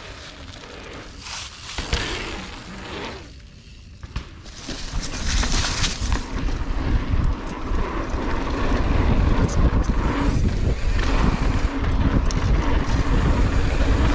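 A mountain bike rolling on a dirt jump trail, a sharp knock near four seconds in. From about four and a half seconds a loud, steady rush of wind buffeting a handlebar-mounted action camera's microphone runs over the tyre noise as the bike rides down the line.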